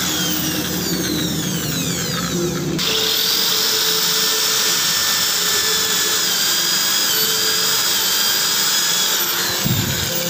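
Corded electric drill boring into a tile stair step, running steadily under load. Its whine falls in pitch over the first seconds, shifts abruptly about three seconds in, and the drilling stops near the end.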